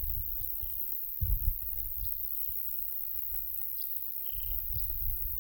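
Light wind buffeting the microphone in low gusts, strongest about a second in and again near the end, with brief scattered bird chirps and short calls and a steady high-pitched insect hiss.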